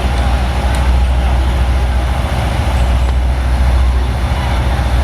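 Engine of a float truck running steadily, a deep continuous rumble, over general street noise.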